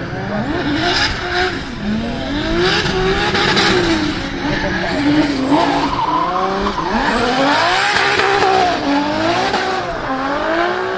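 Nissan Silvia S15's 900 hp turbocharged 2JZ straight-six engine revving up and down over and over as the car drifts, over steady tyre-squeal noise from the rear tyres spinning in smoke.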